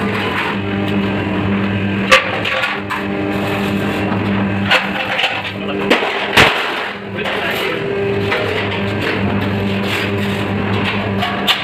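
Hydraulic press brake running with a steady hum, broken by sharp metal clanks as galvanized steel sheet is handled and bent in it. The loudest clank comes a little past the middle.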